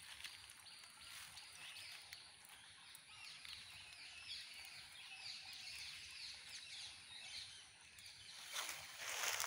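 Birds calling: a quick, repeated run of short, high, downward-sliding notes. Near the end the nylon cast net and grass rustle loudly as fish are picked out of the net.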